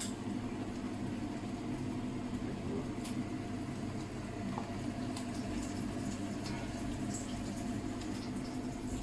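Steady low mechanical hum, with a few faint soft knocks as marinated chicken pieces are laid into a pot of turmeric spice paste.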